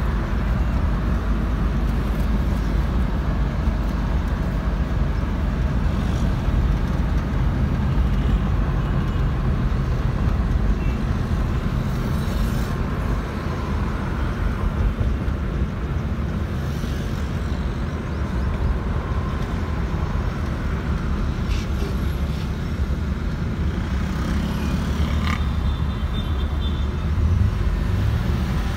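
Road noise inside a moving car's cabin: a steady low rumble of the car's engine and tyres on the road.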